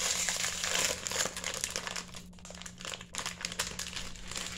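Plastic cookie wrapper crinkling and crackling as hands work it open, busiest over the first two seconds and thinning after that.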